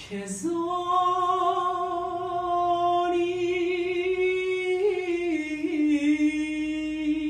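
A solo voice singing an Armenian song unaccompanied, holding one long, slightly wavering note, then stepping down to a lower note about five seconds in and holding it.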